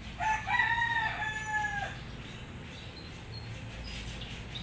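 A rooster crowing once, a short first note followed by a long held note that drops off at the end, lasting under two seconds. Faint small-bird chirps follow near the end.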